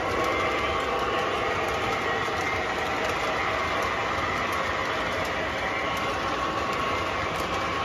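O-gauge model freight cars rolling on three-rail track: a steady rumble with a faint whine and scattered light clicks from the wheels.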